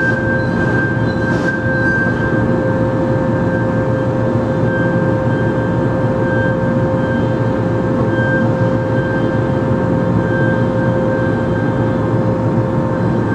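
CNC machining center cutting with flood coolant spraying, running steadily as a dense, even rumble with a steady whine and a higher tone that comes and goes.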